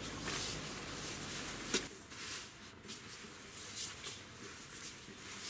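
Nylon shell of a mont-bell down sleeping bag rustling as it is shaken out and spread on a sleeping pad, with one sharp click a little under two seconds in; the rustling is quieter after that.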